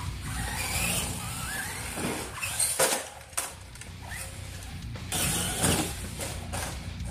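Traxxas Stampede 4X4 RC truck being driven: its electric motor whines up in pitch under throttle. Several short, sharp noises from the truck's run are heard, loudest about three seconds in and again near six.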